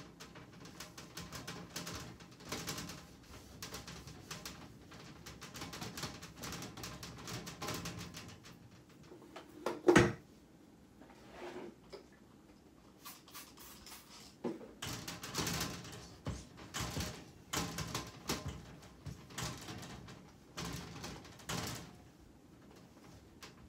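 Things being handled and sorted by hand: irregular rustling and light clattering of small objects, with one sharp, loud knock about ten seconds in.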